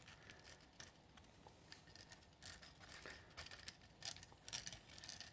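Faint, irregular ticking and scraping of PLA plastic: a thin printed ring being worked round between the layers of a 3D-printed magic spring, prying the coils apart.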